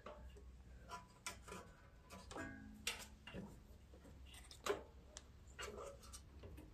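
Faint, scattered clicks and taps of plastic and metal parts knocking together as a small engine's carburetor and its plastic intake piece are fitted back on by hand.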